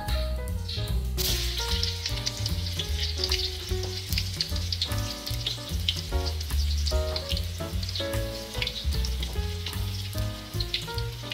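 Cubes of tofu sizzling and crackling as they deep-fry in hot oil in a wok, starting about a second in.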